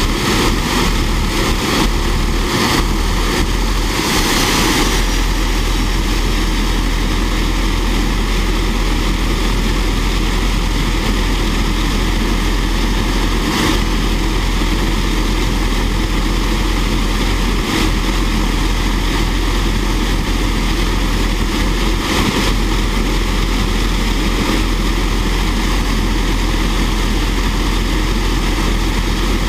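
Fairchild J44 turbojet engine running at a steady speed: a loud, even rushing noise with no change in speed.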